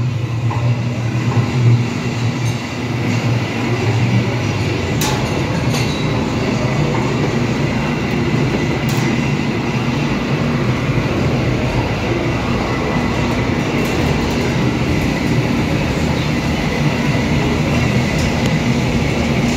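Ribbon-type dough mixer with a 3 hp motor running empty, its ribbon agitator turning in the stainless steel trough: a steady mechanical hum, strongest and lowest in the first couple of seconds, with a couple of short sharp clicks.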